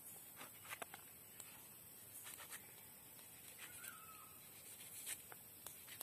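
Near silence with faint, scattered clicks of a small knife slicing a ghost pepper held in the hand, and a brief chirp about four seconds in.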